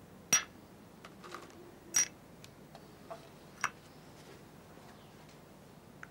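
Small glass tea glasses clinking against their saucers and the serving tray as tea is handed round: three sharp clinks with a brief high ring, the loudest about two seconds in, with a few fainter taps between them.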